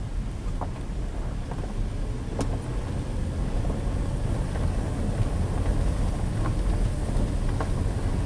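Car driving along a dirt forest road, heard from inside the cabin: a steady low rumble of engine and tyres on the dirt, with a few faint clicks.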